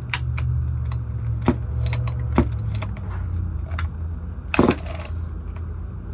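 Light clicks and knocks from handling the Echo CS341 chainsaw, then about four and a half seconds in a short rasping pull on its starter rope; the engine does not catch. A steady low hum runs underneath.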